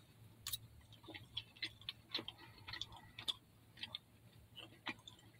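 Faint, irregular soft clicks and smacks of a mouthful of canned tuna being chewed close to the microphone.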